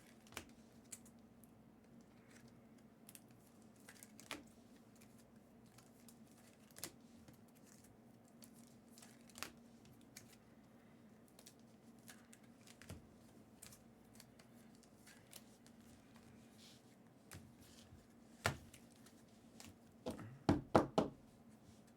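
Hands handling trading cards and foil packs: scattered soft clicks and rustles, then a quick run of louder snaps near the end, over a faint steady hum.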